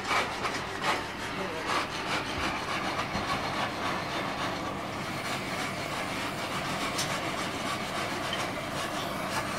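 Oxy-fuel gas torch flame hissing steadily as it heats a steel bar clamped in a vise, with a few sharp clicks of metal being handled.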